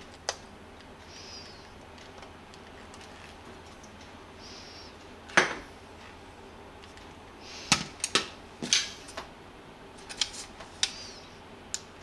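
Red plastic hair dryer housing being handled and fitted together: scattered clicks and knocks of plastic parts against each other and the tabletop, one loud knock about five seconds in, a quick cluster from about eight to nine seconds, and a few faint squeaks of plastic rubbing.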